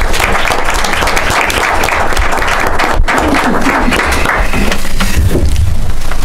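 Audience applauding, the clapping thinning out in the second half.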